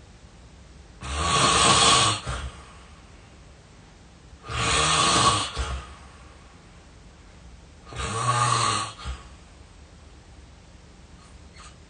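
A person snoring heavily: three snores, each about a second long, coming roughly every three and a half seconds.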